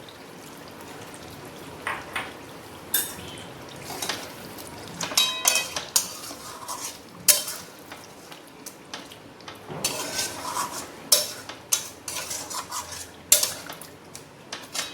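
A metal utensil clinking and scraping against a cooking pan as a thick chicken curry is stirred, in irregular strikes, some ringing briefly.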